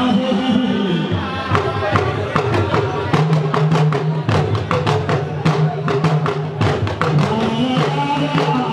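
Drum-led music: quick, steady drum strokes, several a second, over low held notes that slide up and down in pitch.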